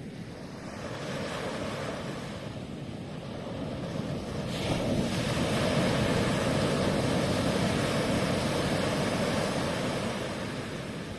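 Ocean waves breaking on the shore: the surf swells about a second in, then again more loudly about four and a half seconds in, and eases off near the end.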